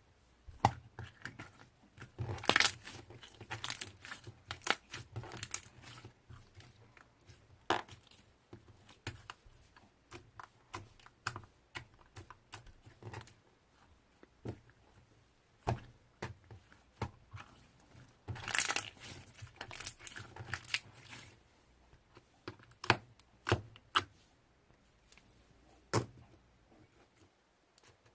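Slime being squeezed and stretched by hand, giving irregular sticky pops, clicks and crackles, with two denser bursts of crackling.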